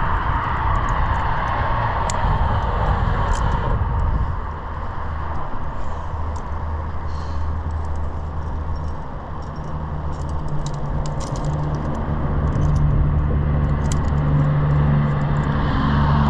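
Highway traffic: a steady rush of passing vehicles, with a low engine drone coming in about four seconds in, and light metallic clinks over it.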